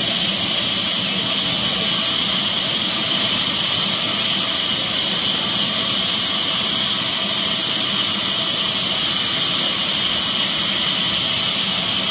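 Horizontal band sawmill running steadily, making a constant loud hiss over a mechanical hum.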